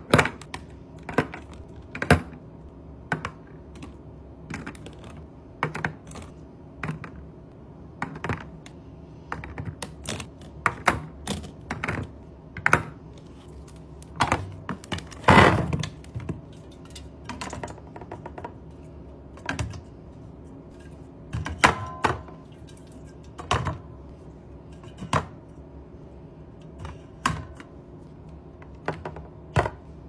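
Eggs, strawberries and pudding cups set one at a time into clear plastic fridge-organiser bins: a run of light clicks and taps of items against hard plastic, about one a second, with one longer, louder noise about halfway through.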